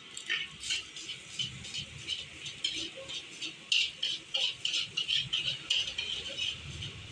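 Metal spatula clanking and scraping against a wok in quick, irregular strokes, about three or four a second, as nasi goreng (Indonesian fried rice) is stir-fried.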